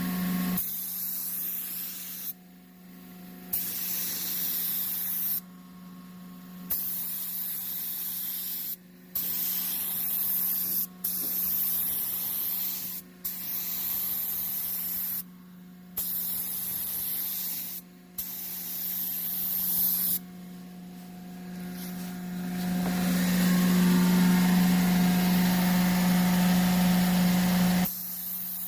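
Air spray gun hissing as it sprays primer, in passes broken by short pauses about ten times where the trigger is let off, running longer and louder near the end. A steady low hum runs underneath throughout.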